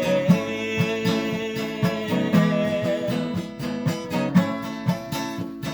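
Worship song music: strummed acoustic guitar over held notes and a steady beat.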